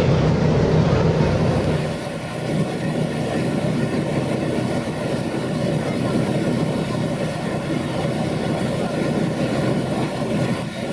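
Tour boat under way: a steady engine drone with water and wind rushing past the deck. The low hum drops and the level falls a little about two seconds in, and the sound then runs on evenly.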